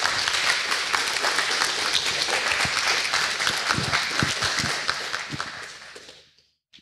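Audience applauding, many hands clapping at once; the applause fades out about six seconds in.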